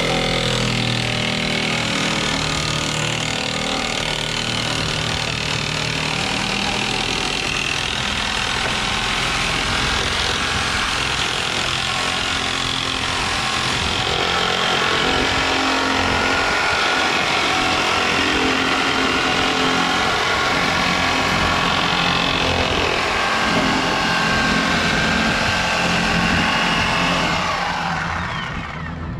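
A corded electric cutter running steadily under load as it cuts into the steel main-chain sprocket on the conveyor's head shaft, then coasting down with a falling whine near the end when it is switched off.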